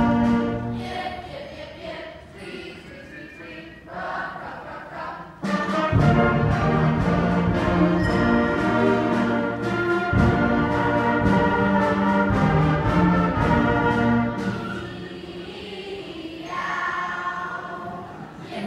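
School concert band playing, with clarinets, flutes and saxophones. A softer passage gives way to a sudden loud full-band entry about five seconds in, which falls back to a quieter passage after about fifteen seconds.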